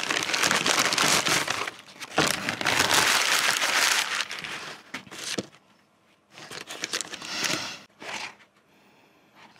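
Paper takeaway bag crumpling and rustling as food is unpacked from it by hand. It is loudest over the first four seconds, then comes a few softer rustles.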